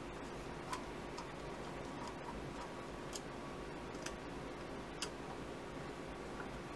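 A handful of sharp little metal clicks, spread a second or so apart, from a screwdriver working the small screws of a Honda CB650 carburetor's diaphragm top cover, over a faint steady hum.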